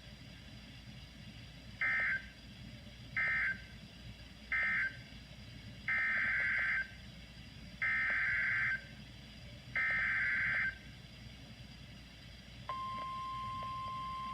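NOAA Weather Radio SAME data bursts, a rapid warbling buzz. Three short bursts about a second apart are the End of Message code closing one alert, then three longer bursts two seconds apart are the header opening the next. Near the end the steady 1050 Hz warning alarm tone starts.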